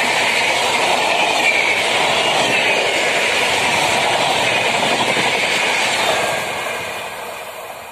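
Indian Railways passenger coaches rushing past at speed: a loud, steady noise of wheels on rails. It fades from about six seconds in as the luggage van at the tail passes and the train draws away.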